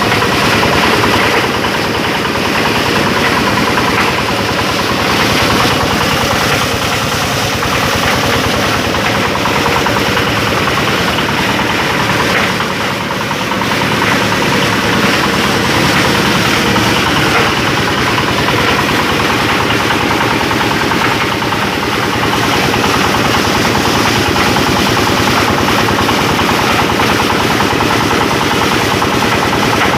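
Plastic shredding machine running steadily, its drive making a continuous fast, even rhythm, dipping slightly in level about twelve seconds in.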